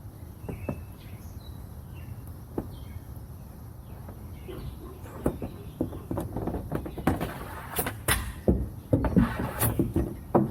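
Hockey stick and pucks clacking on plastic shooting tiles: a few sharp knocks at first, then a quick, louder run of clacks from about halfway through. Small birds chirp in the first few seconds.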